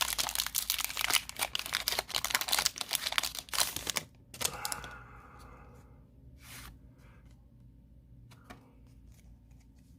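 Foil Pokémon booster pack crinkling and tearing open for about four seconds. After that come quieter scattered clicks and light rustles of the cards being handled.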